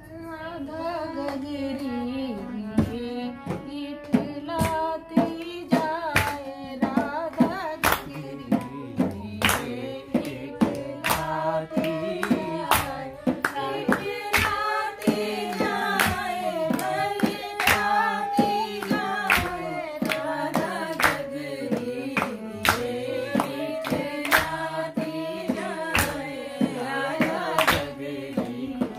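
Women singing a traditional Holi folk song (hori) to a harmonium, with sharp rhythmic beats marking the time.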